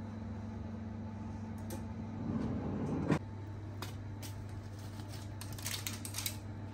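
Cotton tea towel rustling as it is laid and smoothed over a baking tray of bread rolls, with a few light clicks, over a steady low hum; a single sharp knock about three seconds in.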